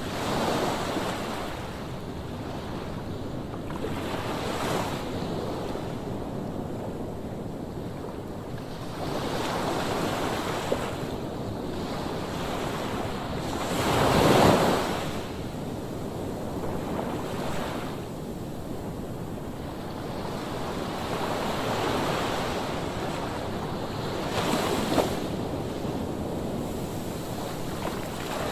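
Rough sea surf breaking on a sandy beach, with a wave crashing every few seconds and the biggest about halfway through, over wind buffeting the microphone.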